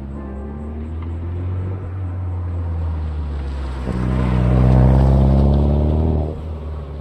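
Toyota MR2 SW20 GT-S's turbocharged 3S-GTE four-cylinder running through a Fujitsubo RM01A muffler. The engine holds a steady note, rises into a louder rev about four seconds in, then drops off sharply about two seconds later.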